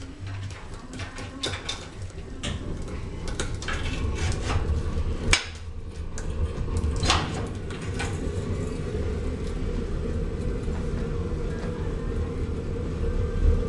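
Metal clanks and knocks as the burning pan of a drip-feed waste-oil heater is pushed into place and locked to the dripper tube, the two loudest about five and seven seconds in. Under them runs a steady low rumble from the lit burner.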